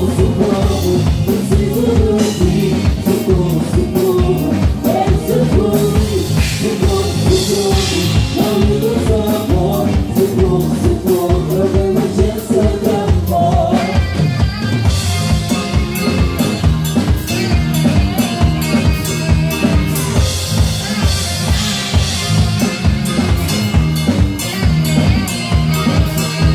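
Live band playing: a steady drum-kit beat under a wavering lead melody, which gives way about halfway through to a fuller, brighter section thick with cymbals and drums.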